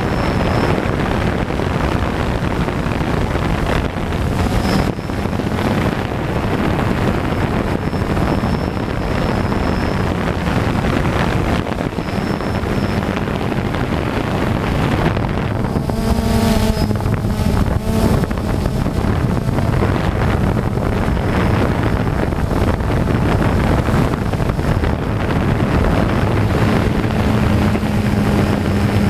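DJI Phantom quadcopter's motors and propellers humming steadily in flight, heavily masked by wind rushing over the onboard camera's microphone. About sixteen seconds in, the tone briefly changes for a second or two.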